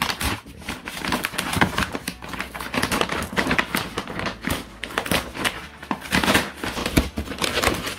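Heavy brown paper mailer bag being pulled and torn open by hand, giving irregular crackling and crinkling of thick paper.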